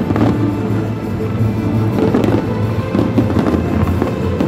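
Fireworks crackling and banging over music, with a few sharper bangs standing out.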